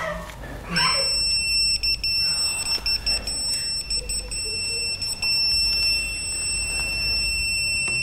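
Non-contact voltage tester sounding a steady, high-pitched alert tone, starting about a second in: it is picking up live voltage at the switch box.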